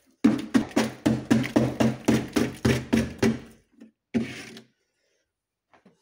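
Ice being chipped from the wall of a chest freezer with a hand tool: quick, even strikes about four or five a second for some three seconds, then one more strike about a second later.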